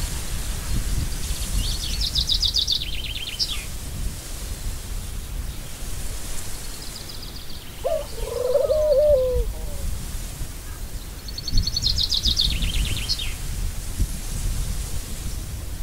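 Birds calling over a steady low background noise: a high, rapid trilled phrase about two seconds in, repeated almost the same about twelve seconds in, and a lower wavering call about eight seconds in.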